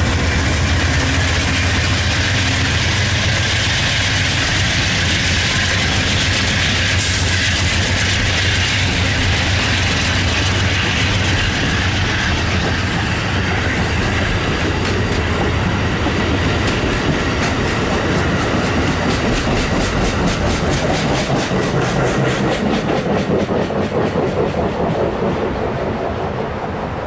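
Amtrak passenger train passing close, a GE P42DC diesel locomotive followed by Superliner cars. The locomotive's low engine hum is heard at the start, then the cars roll by with steady wheel clatter and regular clicks over the rail joints. The sound eases off near the end.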